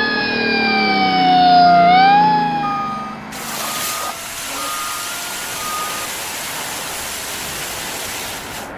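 Cartoon fire truck siren wailing, its pitch falling and then rising again about two seconds in, with short beeps repeating steadily. From about three seconds in, the siren gives way to a loud, steady hiss.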